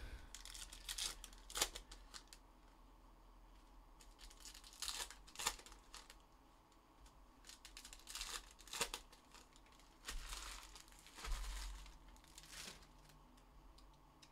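Crinkling of plastic and foil as trading card packs and card sleeves are handled on a table, in several short bursts with quieter gaps between.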